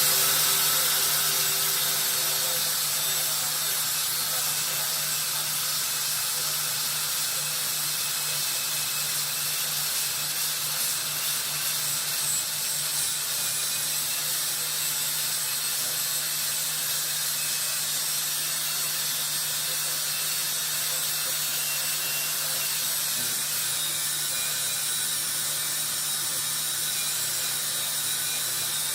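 Angle grinder running steadily and grinding metal, a continuous high-pitched grinding noise over a steady motor hum, a little louder in the first couple of seconds.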